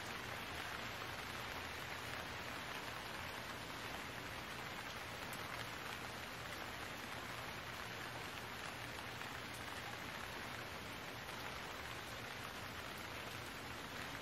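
Steady rain falling, an even hiss that does not change, with a faint low hum underneath.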